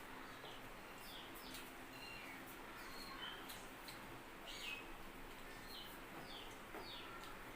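Small birds chirping: short, high, falling notes that come irregularly, a few each second, with scattered faint clicks among them.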